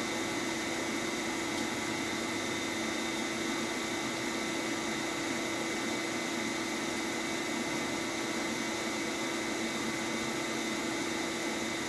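Bacharach diesel injection test stand running steadily, driving a VE rotary injection pump that feeds the test injectors into the graduated vials. A steady hum with a constant high tone over it.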